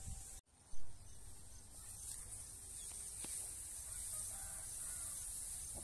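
Outdoor ambience in a ripe rice paddy: a low, fluctuating rumble of wind on the microphone under a steady high hiss. The sound cuts out briefly just under half a second in, followed by a short bump.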